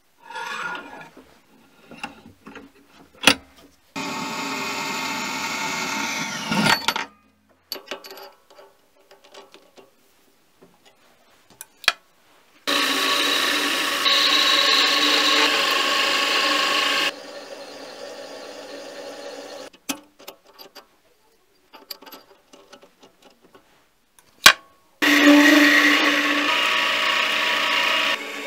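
A metal-cutting band saw cutting stock, its motor winding down to a stop about seven seconds in, followed by clicks and knocks of handling. A mini lathe driven by a sewing-machine motor then runs in two loud stretches with a steady whine, turning a steel rod.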